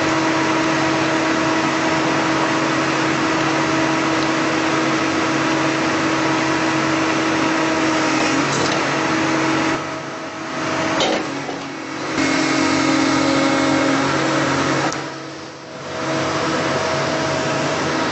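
Doosan DX225LC excavator's diesel engine and hydraulics running under load with a steady whine while driving an SW1100 hydraulic wedge splitter into a drilled hole to crack the rock. The sound drops twice briefly, about ten seconds in and again about fifteen seconds in.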